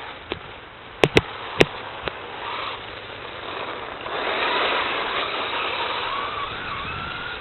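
Radio-controlled car running, its motor whine wavering up and down in pitch as the throttle changes and growing louder about four seconds in. A handful of sharp clicks come in the first two seconds.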